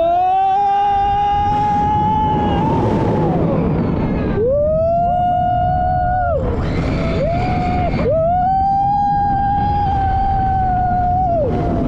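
Coaster riders screaming in long, held screams of a few seconds each, sometimes two voices at once, with short breaks between them, over a constant rushing roar of wind and train.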